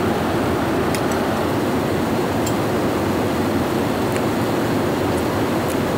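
Steady cabin noise of a jet airliner in cruise, a deep, even rush of engine and air noise, with a few faint clicks.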